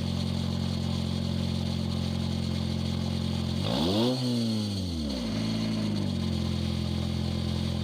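Honda Accord engine running with no exhaust and no muffler: steady idle, revved once about four seconds in, pitch rising and falling back, then a brief small rise before settling back to idle.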